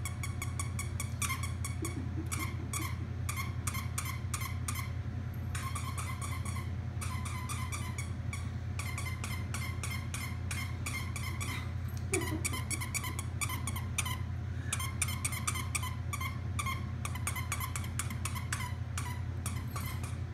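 A squeaky hedgehog dog toy being chewed by a small dog, squeaking over and over in rapid runs of several squeaks a second with short pauses between runs, over a steady low hum.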